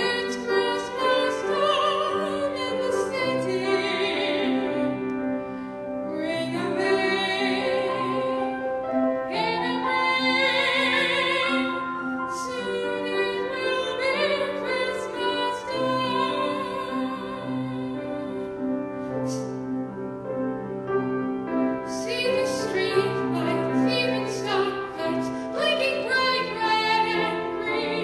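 A female soprano sings in a classical style with vibrato, accompanied by a grand piano.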